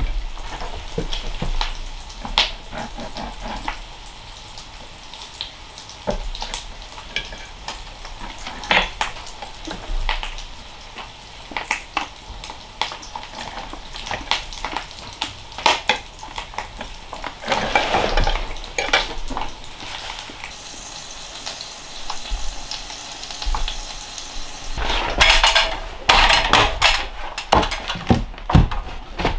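Knife and fork clinking and scraping on a plate while eating at a table, as scattered sharp clicks over a faint hiss. Near the end comes a quick run of sharp knocks and taps.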